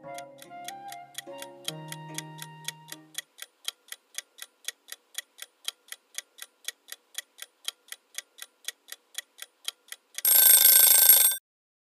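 Countdown-timer clock ticking sound effect, about four even ticks a second, with soft flute music fading out in the first few seconds. About ten seconds in, as the countdown runs out, a loud alarm rings for just over a second to signal time up.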